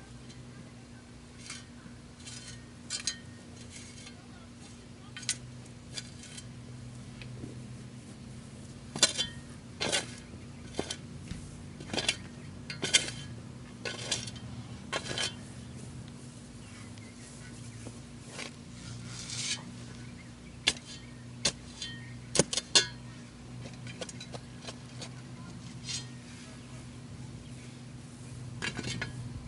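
Kubota B2650 tractor's diesel engine idling with a steady low hum, under a run of irregular sharp clicks and clinks from objects being handled, most of them in the middle of the stretch.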